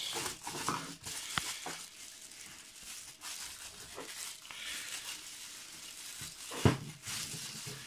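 Plastic bubble wrap crinkling and rustling as a wrapped eyepiece is drawn out of a cardboard box and handled, with small clicks and one sharp knock near the end.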